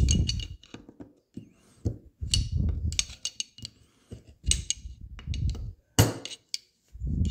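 Metal clicking and scraping of a screwdriver tip working a C-clip down into the bore of a Harley Shovelhead front brake master cylinder, with low handling thuds between the clicks. A sharp louder click about six seconds in fits the clip popping into its groove.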